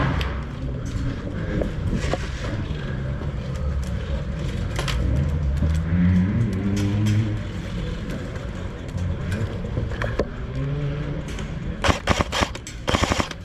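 Low rumbling background, then near the end two short rapid bursts of clicks from an airsoft gun firing on full auto.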